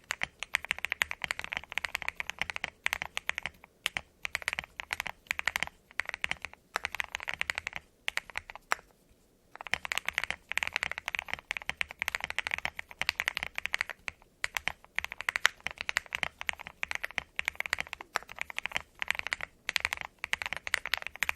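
Typing on a KBDFans Tiger Lite mechanical keyboard with lubed Gateron X linear switches and Drop MT3 ABS keycaps: fast runs of keystrokes with a deep sound, broken by a brief pause about nine seconds in.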